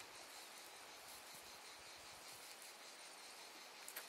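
Near silence: faint rural outdoor ambience with crickets chirping, and a brief faint click near the end.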